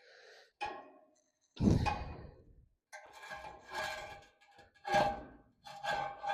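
Front wheel of a 1926 John Deere Model D being slid onto its axle spindle: a series of metal scrapes and knocks, with a heavy thunk about a second and a half in and ringing scrapes after it.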